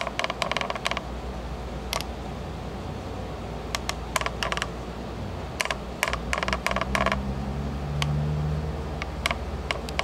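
Irregular clusters of sharp small clicks and ticks over a steady low hum.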